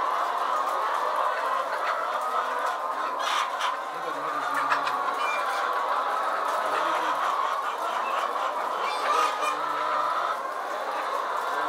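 A large flock of caged laying hens clucking and squawking together, a steady mass of many overlapping calls.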